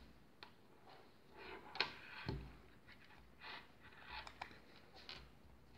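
Small plastic clicks and taps of LEGO pieces and a thin circuit-board strip being handled and pressed together by hand, scattered and irregular, the sharpest click a little under two seconds in.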